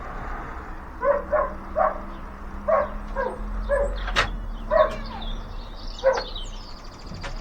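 A dog barking repeatedly, about nine short single barks spaced half a second to a second apart, with one sharp click about four seconds in.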